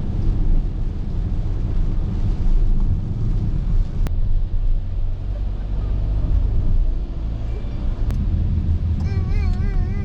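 A steady low rumble with no clear events, like road noise from a moving vehicle or wind on the microphone. Near the end a voice comes in singing with a wavering pitch.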